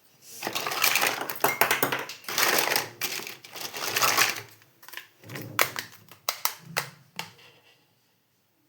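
Small toy kitchen pieces being handled, with bursts of rustling and quick clattering clicks, then a few separate sharp clicks before it goes quiet.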